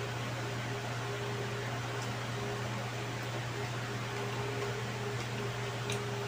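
Electric fan running with a steady hum and even whoosh. A couple of faint clicks from eating are heard, about two seconds in and near the end.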